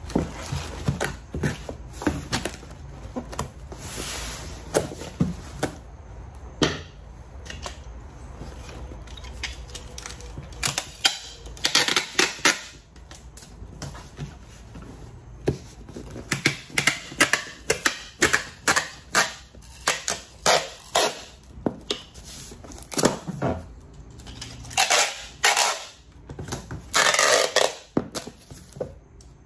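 Objects being handled on a work surface: irregular clicks and knocks, with a few short rustling bursts.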